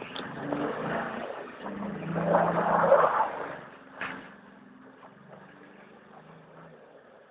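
Jeep Wrangler JK engine revving with a loud rush of tyres spinning through snow, loudest about two to three seconds in. It then eases off to a quieter, steady engine note, with one brief sharp noise about four seconds in.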